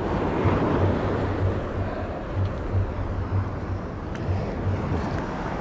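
Wind buffeting the microphone in uneven low rumbles, over a steady wash of surf that swells from about half a second to two seconds in.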